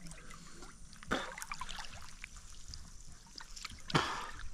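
Water splashing and trickling while a fishing net is worked in the water, with two louder splashes, one about a second in and one near the end.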